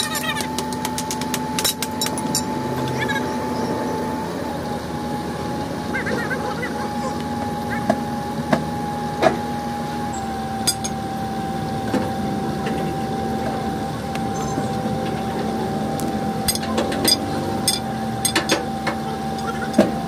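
Scattered sharp metal knocks and clanks from a hammer and hand tools during leaf-spring work on a Bolero pickup, over a steady hum.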